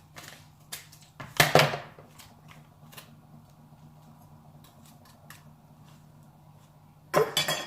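Scissors cutting open a plastic cake-mix pouch, with light clicks and crinkling of the plastic; the loudest cuts come about a second and a half in and again near the end.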